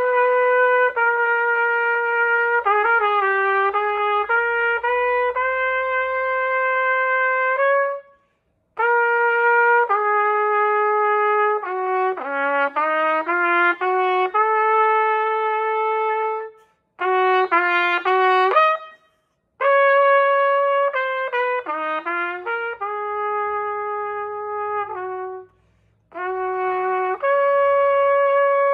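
Solo trumpet, unaccompanied, playing a lyrical étude in A-flat major: held notes and quicker runs of notes in phrases, with four short breaks for breath between phrases.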